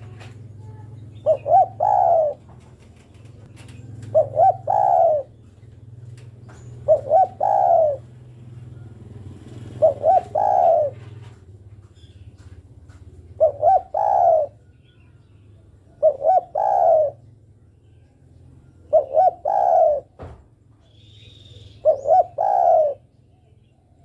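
Spotted dove (derkuku) cooing: eight phrases about three seconds apart, each two short coos followed by a longer one. The uploader gives it as a female calling a male.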